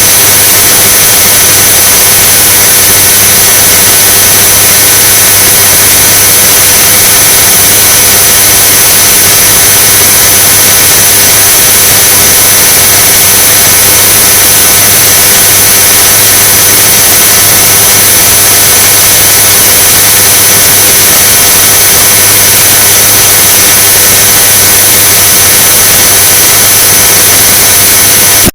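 Noise sound effect: a loud, unchanging hiss strongest in the high end, with several steady high whistling tones and a low hum running through it.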